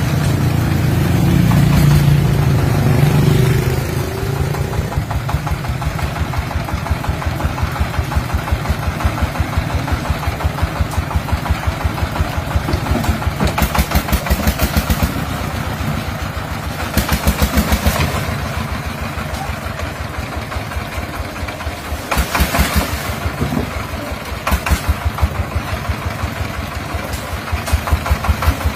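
Single-cylinder 'dompeng' diesel engine running with an even chugging beat, picking up and getting louder for a second or two several times.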